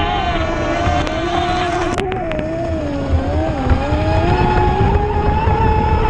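High-pitched whine of a 6S brushless electric RC speedboat running at speed. Its pitch wavers and dips about three and a half seconds in, then climbs back, over a low rumbling noise.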